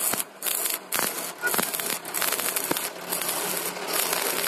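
Electric arc welding on steel: the arc's steady crackling sizzle, briefly dropping out a few times in the first second and a half before running on more evenly.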